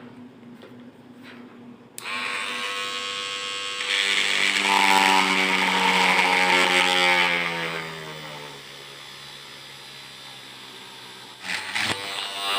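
Small electric drill boring a hole through a PVC-pipe clamp. It starts suddenly about two seconds in with a whine that gets louder and then falls in pitch, runs quieter from about eight seconds in, and gives a few short bursts near the end.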